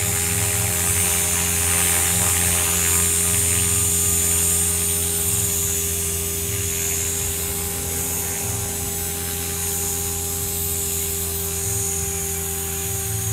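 Align T-Rex 500 electric RC helicopter hovering, its brushless motor and rotor blades giving a steady whine at constant speed.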